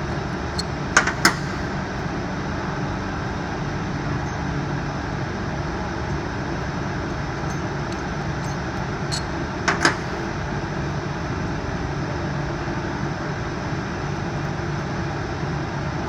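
Steady background hum, with two pairs of sharp metallic clinks, one about a second in and one near ten seconds, as the four retaining bolts of a small hydraulic gear pump are taken out and set down.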